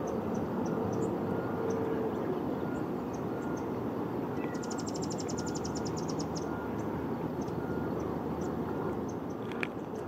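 Steady low rumble of distant traffic with small birds calling over it. One short high chirp repeats a little more than once a second, and a fast, thin trill runs for about two seconds midway. A sharp tick comes near the end.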